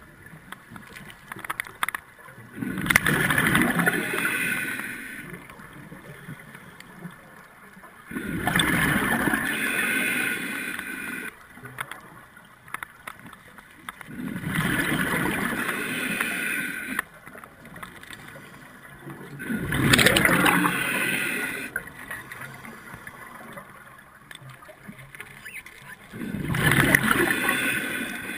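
Scuba diver breathing through a regulator underwater: five bursts of exhaled bubbles, each about two seconds long, coming about every six seconds, with quieter stretches between for the inhalations.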